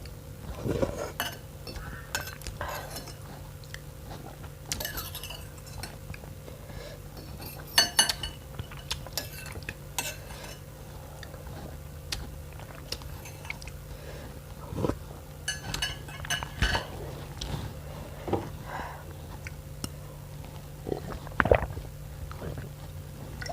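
Eating utensils clinking and scraping against a bowl at irregular moments, with some chewing in between, over a steady low hum.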